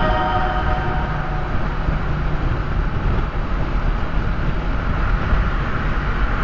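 Steady road and tyre noise with engine hum heard from inside a car driving at highway speed.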